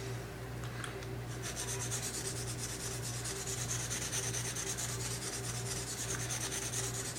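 Knife blade being stroked quickly back and forth on an oiled 280-grit medium sharpening stone, a steady scraping hiss that starts about a second and a half in.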